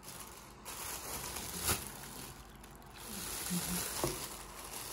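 A thin plastic bag crinkling and rustling as a hand handles it and twists it shut around a batch of chocolate muffins, with a couple of sharper crackles.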